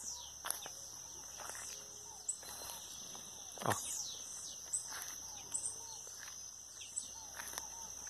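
Dawn chorus of many wild songbirds: repeated thin whistled notes that fall in pitch, with softer short calls lower down and a steady high-pitched hiss underneath.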